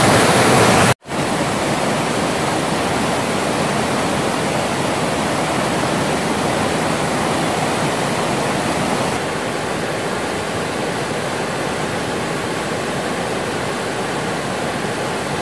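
Mountain stream rushing and splashing over boulders in a whitewater cascade, a steady full rush. It breaks off for an instant about a second in, and comes back a little quieter from about nine seconds on.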